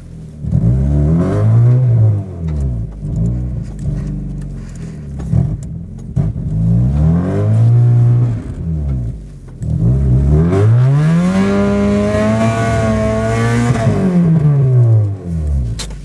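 Mazda Miata's four-cylinder engine revving up and falling back in several surges as the car sits stuck in deep snow with its rear wheels spinning for traction; the longest rev is held high for about four seconds near the end.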